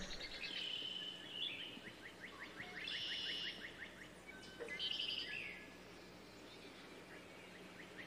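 Faint wild birdsong: birds chirping, with a fast trill of short repeated notes from about one to three seconds in and short bright chirp phrases around three and five seconds.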